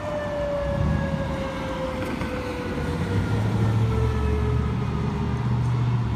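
Emergency warning siren winding down during a monthly test, its single tone sliding slowly lower in pitch and fading out near the end. A low rumble runs underneath.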